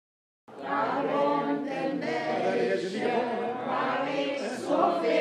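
A group of elderly people singing together without accompaniment, many voices at once; the singing starts about half a second in.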